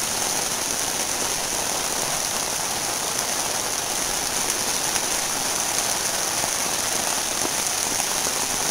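Heavy rain pouring down steadily in a downpour, an even hiss of rain hitting the ground and surfaces.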